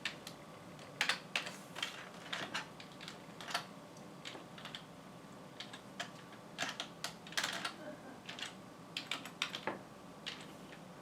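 Keys typed on a computer keyboard: irregular clicks, some in quick runs, over a faint steady hum.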